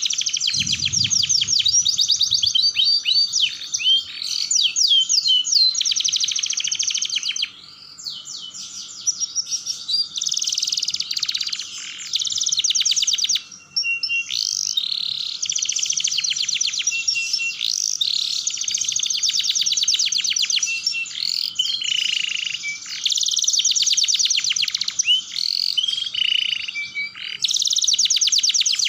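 Domestic canary singing a long, fast rolling song: rapid trills and chattering runs of high notes, with a couple of brief breaks.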